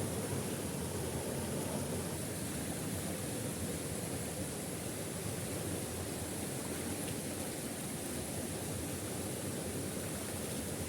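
Waterfall rushing, a steady even noise of falling water without pause.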